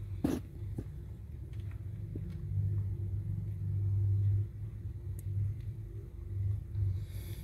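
Orange mother cat purring while she nurses her kittens, a low pulsing rumble that swells for a couple of seconds in the middle. A brief sharp sound comes about a third of a second in.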